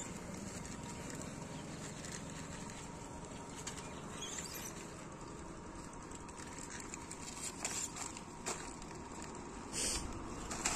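Faint steady outdoor background hiss with a few short crinkles of plastic snack packets being handled, the loudest two in the last few seconds.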